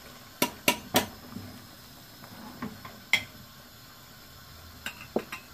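A metal spoon knocked three times in quick succession on the rim of an aluminium cooking pot, followed later by a few lighter clinks of kitchen utensils.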